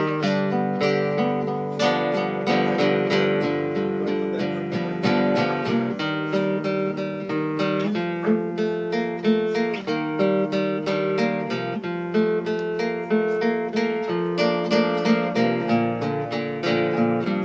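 Classical guitar played solo, a quick run of plucked notes, several a second, ringing over one another in a steady arpeggiated melody, tuned to 432 Hz.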